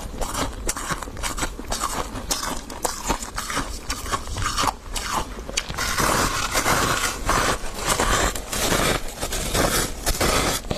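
Refrozen freezer frost being bitten and chewed close to the microphone: a dense run of crunches that grows louder and more continuous about six seconds in.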